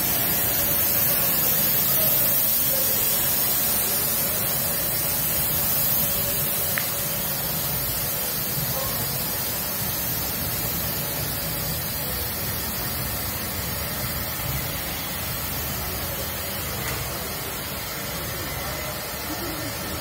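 Power cable production line machines running steadily: a continuous mechanical hum with a hiss over it and a faint steady tone, growing slightly quieter toward the end.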